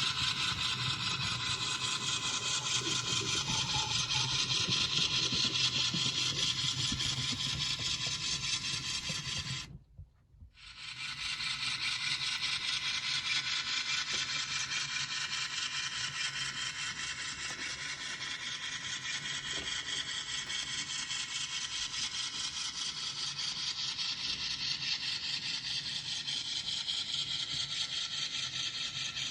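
N scale ScaleTrains GE C44-9W model locomotive running along the track with its sound decoder off: a steady mechanical whir of the small motor, gears and wheels on the rails. About ten seconds in it cuts out for roughly a second, then starts again.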